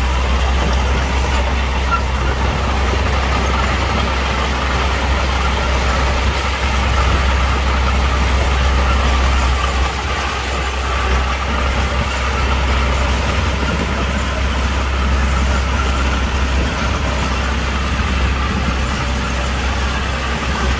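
Heavy earthmoving machinery running: a steady engine noise with strong low-end energy that holds level throughout.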